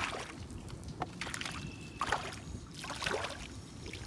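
A hooked bluegill thrashing at the water's surface beside the boat: five or six irregular splashes over a steady low rumble.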